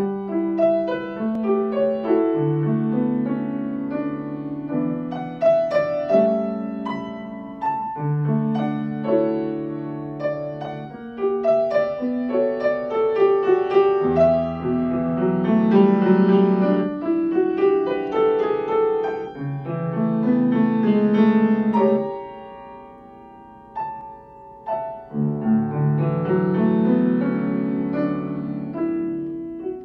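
Solo Yamaha grand piano playing a gentle classical-style piece. About two-thirds through the playing thins to a few ringing notes, then picks up again.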